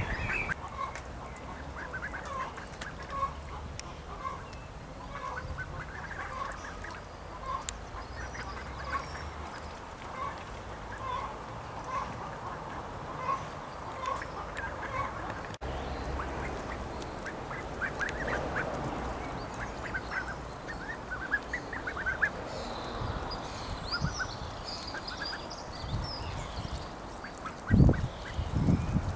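Welsh Harlequin ducklings peeping: first a steady run of short, evenly repeated calls, then after about the halfway point busier, higher chirping from several birds at once. A couple of loud thumps near the end.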